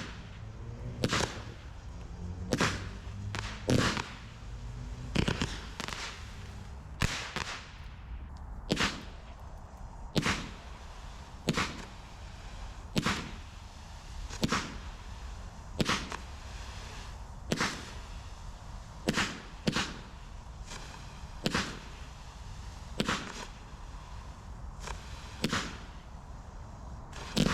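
Low-noise 16-shot firework barrage cakes firing in a steady sequence: muted shots from the 20 mm tubes, about one every one and a half seconds, each with a short trailing fizz.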